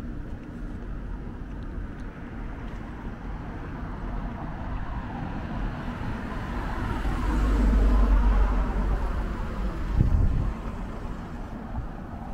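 A car driving past: engine rumble and tyre noise swell to a peak about eight seconds in, then fade. A short low thump follows about two seconds later.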